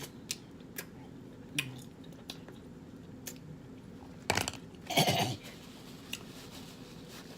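Close-up eating sounds from a seafood boil: scattered small clicks and taps of shells and utensils, with two louder wet mouth sounds about four and five seconds in.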